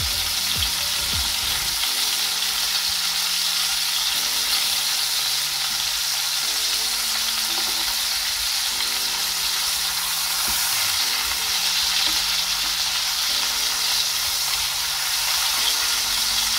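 Sirloin steak sizzling steadily in hot rendered smoked-lard fat in a frying pan, with garlic cloves frying around it, as its second side sears.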